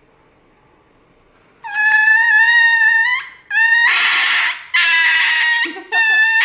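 Small puppy screaming in pain and fear at an injection: after a moment of quiet, one long shrill wail of about a second and a half, then a run of harsher cries about a second each with short breaks between them.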